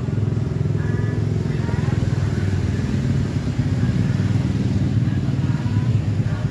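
A steady low engine rumble, with faint voices above it.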